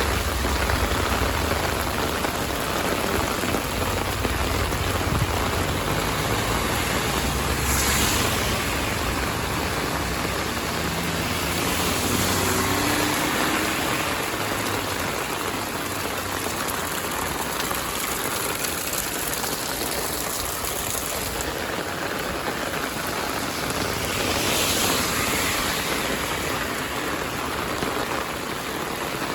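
Heavy rain falling steadily, a constant hiss. A low rumble sits under it in the first few seconds, and the hiss swells briefly twice.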